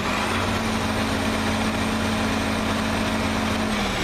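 1978 John Deere 4640 tractor's turbocharged six-cylinder diesel running, revved up and held at a steady higher speed, then dropping back near the end. A faint high whine rises and falls with it.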